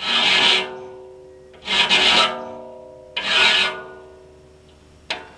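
A hand file rasping across a steel tooth of a large circular sawmill blade, sharpening it: three strokes about a second and a half apart. After each stroke the blade rings on and slowly fades.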